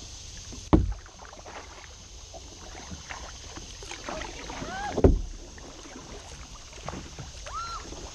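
Kayak being paddled: paddle strokes with water dripping and splashing. Two dull knocks on the plastic hull, one about a second in and one about five seconds in, are the loudest sounds.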